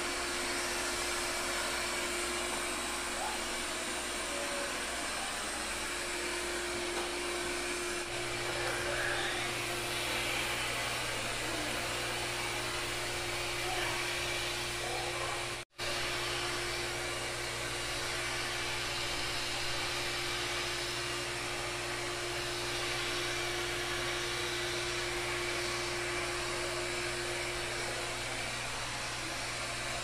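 Lydsto W2 robot vacuum running on a hard tile floor: a steady whir of its suction fan with a constant hum, and a deeper hum joining about a quarter of the way in. The sound cuts out for an instant about halfway through, then carries on.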